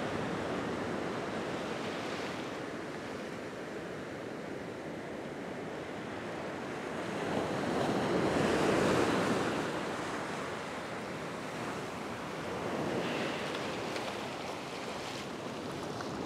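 Ocean surf breaking and washing up the beach in swells, the loudest wave about halfway through and a smaller one later.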